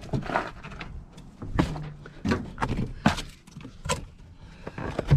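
Handling noises inside a car: a hand rummaging over the floor pan and lifting the carpet, with irregular sharp clicks and knocks of trim and loose bits.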